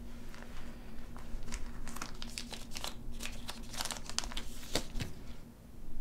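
Crinkling and rustling, a quick irregular run of crackles lasting about five seconds, over a faint steady low room hum.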